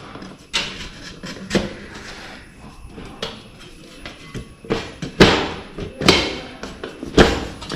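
Irregular knocks and clunks, about eight in all and loudest in the second half, as MDF shelf boards are handled and set against a metal rack frame.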